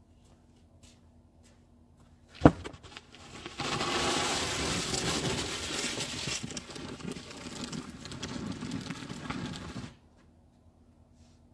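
A sharp knock, then a wide snow shovel scraping along paved ground as it pushes snow for about six seconds, stopping suddenly.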